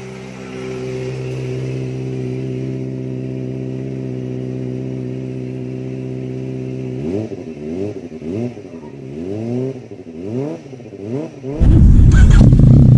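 Kawasaki ZX-25R's 250 cc inline-four with an aftermarket carbon slip-on exhaust idling steadily, then blipped through a quick series of revs that rise and fall. Near the end the sound cuts abruptly to a much louder, deeper engine, a Yamaha MT-09's three-cylinder.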